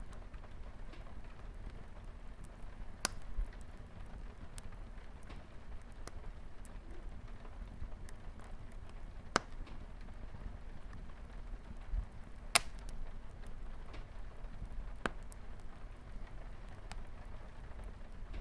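Wood fire crackling, with scattered sharp pops (the loudest two about nine and twelve and a half seconds in), over a steady hiss of light rain on a window.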